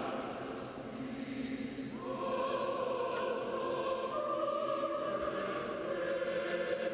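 Choir singing slow, long-held notes as background music; a new sustained chord begins about two seconds in.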